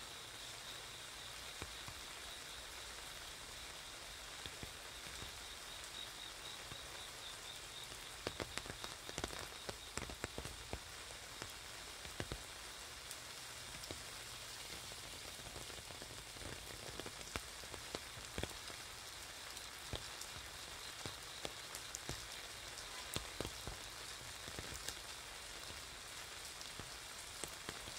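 Steady rain hissing down on a wet street, with many separate drops ticking sharply on an umbrella overhead; the ticks come thickest about eight to eleven seconds in.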